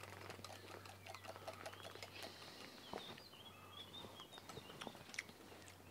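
Faint small-bird chirps in the garden over a steady low hum, with light scattered clicks of a small whisk in a glass bowl.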